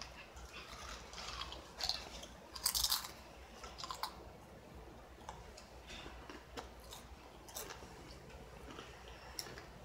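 A mouthful of Ruffles ridged potato chips being chewed, irregular crunches that are loudest a little under three seconds in, then fainter chewing.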